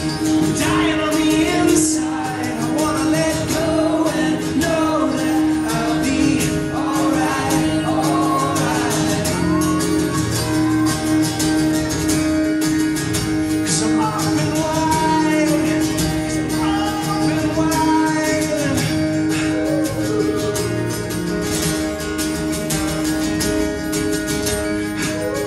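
Acoustic guitar played live and strummed without a break, with singing over it.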